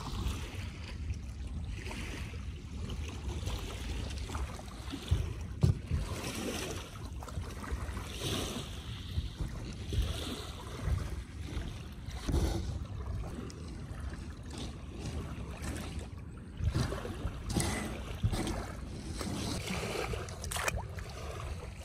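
Wind rumbling on the microphone, with water lapping at the shore and a few light knocks as the toy is handled.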